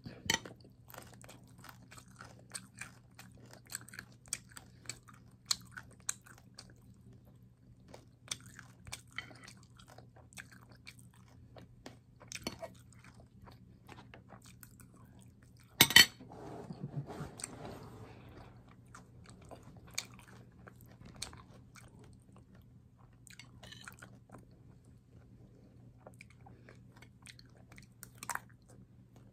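Close-up chewing and smacking of mouthfuls of rice and vegetables, with soft clicks of a fork and spoon against the dishes. About 16 seconds in there is one louder sharp click, followed by a couple of seconds of busier noise.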